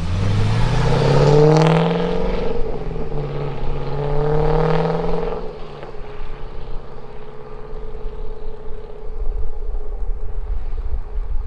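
2011 Cadillac CTS-V's supercharged 6.2-litre V8 with Borla exhaust under hard acceleration: the engine note rises, dips at a gear change about two and a half seconds in, rises again, then falls back to a steady lower note about six seconds in as the throttle is lifted.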